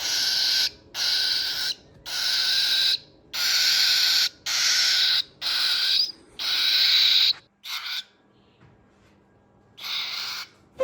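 Cockatiel chick making raspy, hissing begging calls: a run of about eight, each about a second long, then a short pause and one more near the end.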